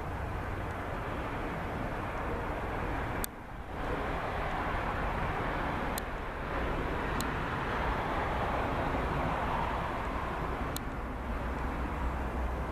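Amtrak AEM-7AC electric locomotive and its train approaching, a steady rumble that grows slightly louder as it nears, with a few short sharp clicks.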